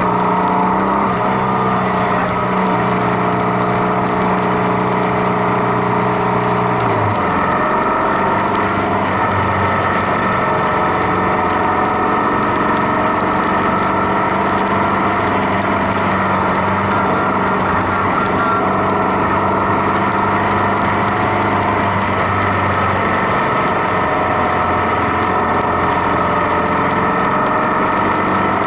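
Motorcycle engine running steadily, its note dropping to a lower pitch about seven seconds in and then holding.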